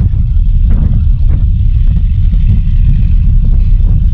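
Loud, steady low rumble heard on the open deck of a moving catamaran ferry: wind on the microphone mixed with the ferry's running noise.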